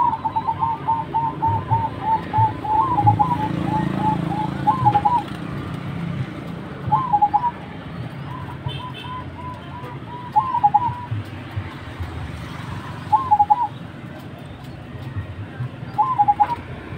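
Zebra doves (perkutut) cooing. A fast run of short notes comes first, then short phrases of a few notes at a time, repeated every two to three seconds.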